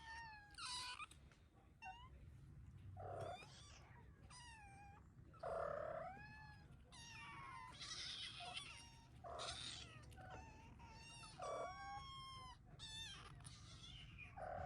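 Hungry kittens mewing over and over in thin, high, rising-and-falling cries, begging for food, with several lower, louder meows mixed in.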